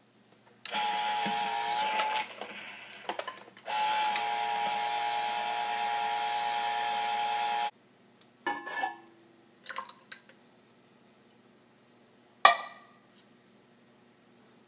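Electric can opener motor whining steadily as it opens cans of tomato sauce: a short run, then a longer one of about four seconds. After it come a few clicks and clanks of the cans and lids, with one sharp knock near the end.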